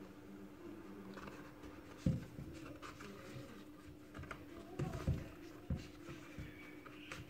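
Hands working a crochet hook through chunky T-shirt yarn: soft scratching and rustling of hook and yarn, with a few soft knocks, the loudest about two seconds in and another pair around five seconds in. A steady low hum runs underneath.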